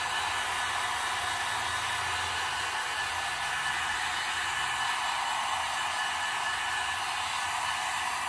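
Handheld heat gun running steadily, a continuous blowing rush with a faint steady whine, heat-setting wet airbrushed paint on a lure.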